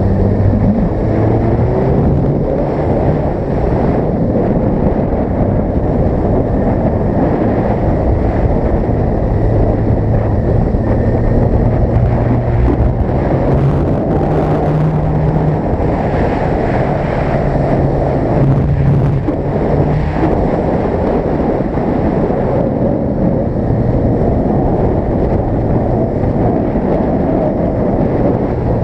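Wind rushing over the microphone of a camera on a Yamaha YZF-R15 sportbike under way, with the bike's single-cylinder engine droning underneath. The engine note steps up and down a few times as the throttle changes.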